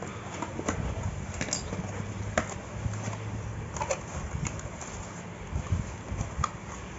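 Cardboard shipping box handled by hand, its flaps folded open: scattered short cardboard taps and rustles, half a dozen sharp clicks spread through.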